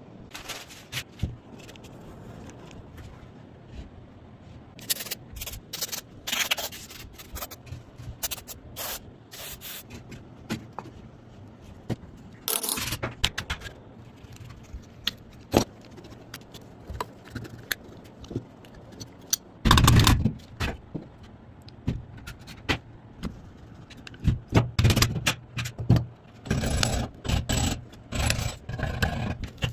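Hand tools scraping, rubbing and clicking against the parts of an AK-47 rifle being restored, in irregular strokes. The loudest burst comes about two-thirds of the way through, and a busy run of scrapes follows near the end.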